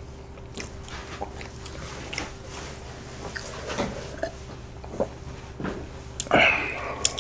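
A man chewing and drinking milk from a clear plastic cup: quiet mouth sounds and swallows with scattered small clicks, and one louder burst about six seconds in.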